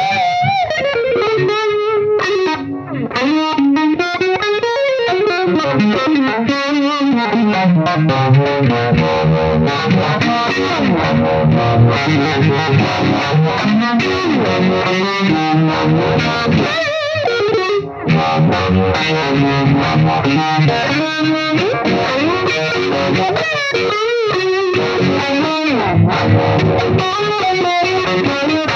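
Distorted electric guitar played through a Roger Mayer Voodoo-Vibe, a Uni-Vibe-style modulation pedal: a lead line of sustained and bent notes with a wavering, throbbing pitch and tone. The sound drops out briefly twice, near the start and about midway.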